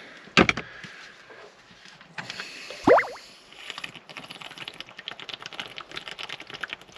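A sharp click about half a second in and a short rising squeak about three seconds in, then a run of quick soft clicks as a drink is gulped from a plastic shaker bottle.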